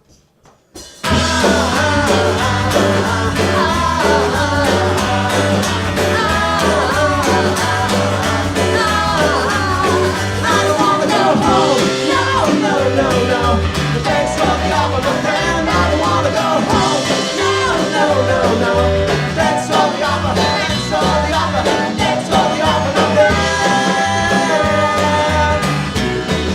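Rock band playing an instrumental passage with guitars, bass and drums. After a near-silent second at the start, the full band comes in.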